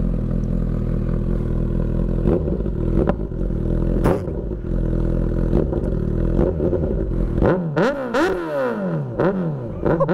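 Suzuki GSX650F's inline-four engine through a full Delkevic decat four-into-one exhaust with no baffle, idling loud and steady. About seven seconds in it is revved in quick blips, about two a second.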